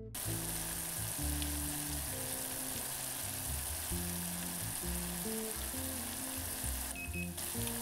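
Sugar syrup of sugar, corn syrup and water at a rolling boil in a saucepan, a steady bubbling hiss, being cooked up to about 240°F (115°C). Soft background music plays underneath.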